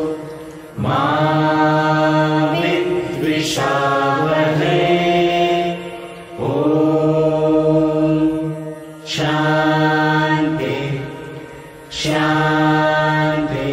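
Voices chanting a Hindu morning prayer together in long, held phrases with short pauses for breath, over a steady low drone.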